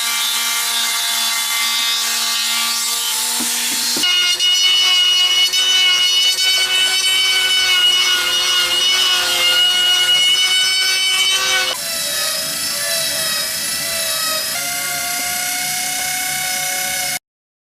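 Power tool motor whining steadily as it cuts or sands wood. It holds one pitch, jumps abruptly to a new steady pitch twice, and cuts off suddenly near the end.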